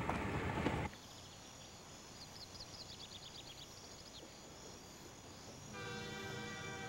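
A low outdoor rumble cuts off abruptly about a second in, leaving quiet evening ambience with crickets chirping in quick runs. About six seconds in, a steady chord of several tones starts and holds: a train horn sounding.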